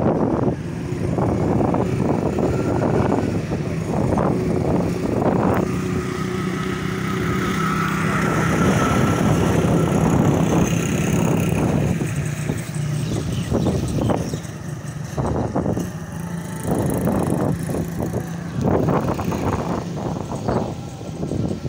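Motor vehicle engine running steadily with road noise, and wind buffeting the microphone in irregular gusts.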